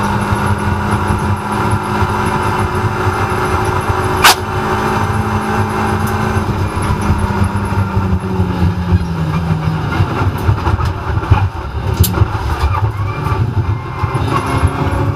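Renault Clio Cup race car's engine heard from inside the cockpit, holding a steady high note down a straight, with one sharp clack about four seconds in. Past the middle the engine note falls as the car slows for a chicane, and the rest is rougher, with a few smaller clacks.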